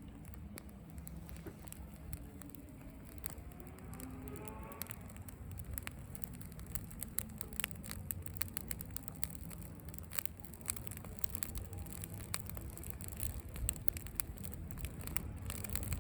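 Small campfire of dry cedar twigs burning, the twigs crackling and popping irregularly over a low rush of flame; the pops come more often in the second half.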